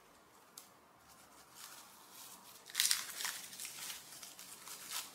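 Clear plastic wrapping crinkling as it is handled and pulled open. It is faint at first and loudest about three seconds in.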